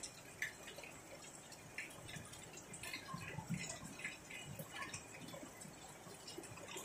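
Light rain falling on wet concrete rooftops, with irregular drips landing every so often.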